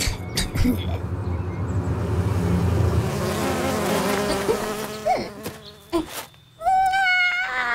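Cartoon sound effect of several flies buzzing, a droning hum that wavers in pitch. Near the end there is a short pitched sound.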